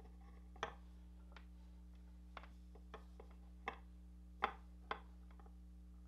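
Small, sharp, irregular metal clicks and taps as wire ends are set into the alligator clips of a helping-hands stand and the clips are adjusted, about seven in all, the loudest about four and a half seconds in. A low steady hum runs underneath.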